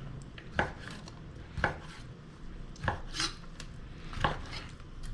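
Kitchen knife cutting raw chicken breast, the blade knocking on the cutting board four times about a second apart.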